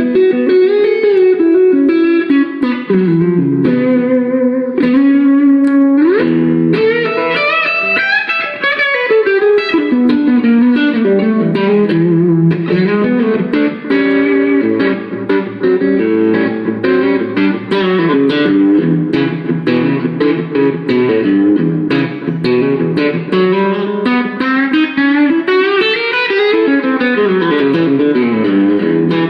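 Knaggs electric guitar played through a Gizmoaudio Sawmill Jr drive pedal and a Dr Z Maserati amp, in fast single-note lines and runs, with a quick slide up in pitch about six seconds in.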